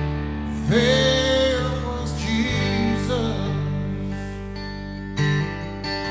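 Live worship band music: a singer rises into one long held sung note about a second in. Then strummed acoustic guitar and bass carry the song over sustained chords, with a sharp strum about five seconds in.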